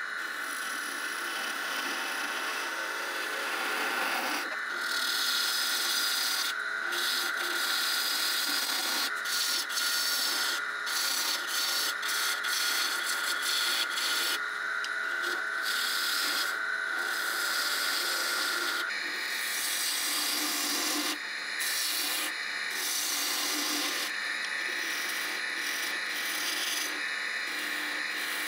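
A turning tool cutting a spinning piece of wood on a wood lathe, shaping the outside of a goblet's cup: a hiss of shavings that starts and stops as the tool is pressed in and lifted off, over the lathe's steady whine. The whine shifts higher about two-thirds of the way through.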